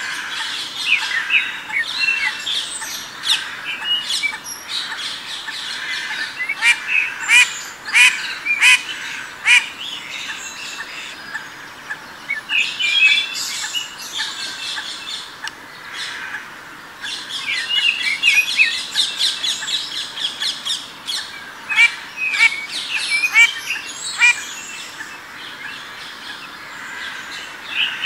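Small songbirds chirping and calling in a busy woodland chorus of many short, quick notes. The calls thin out for a few seconds around the middle, then pick up again.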